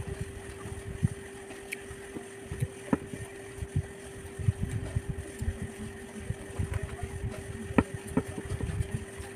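A person chewing food close to the microphone: irregular soft low thumps and wet mouth sounds with a few sharp clicks, over a steady hum.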